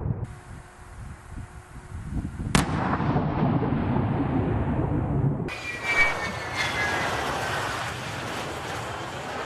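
An explosion: a sharp crack about two and a half seconds in, followed by a loud rumbling blast for a few seconds. Then the sound cuts to a MiG-31 interceptor's jet engines roaring at takeoff power, with a whine that falls slightly in pitch.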